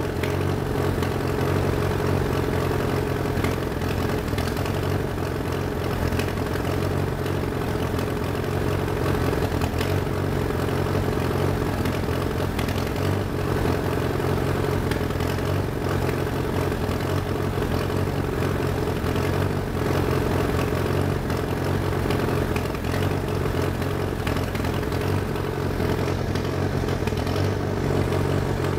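Allis-Chalmers D14 tractor's four-cylinder engine idling steadily while still cold.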